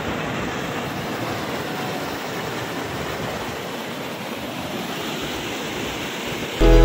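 Steady rush of falling water from a waterfall. Loud music with a heavy bass cuts in near the end.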